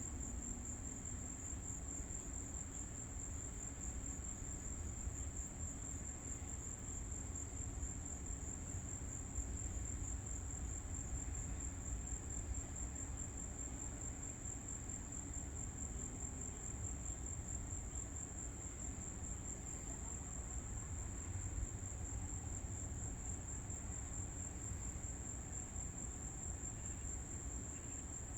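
Crickets chirring in a steady high-pitched chorus that never breaks, over a low steady rumble.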